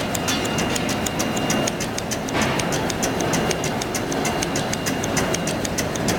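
Paper napkin folding machine running: a steady mechanical clatter with rapid, regular clicking of about five a second from its folding and cutting mechanism.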